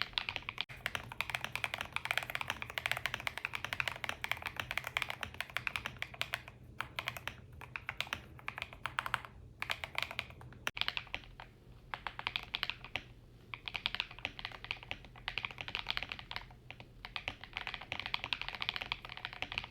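Typing on an EPOMAKER RT100 mechanical keyboard with stock Gateron Smoothie switches: fast runs of creamy-sounding keystrokes broken by brief pauses.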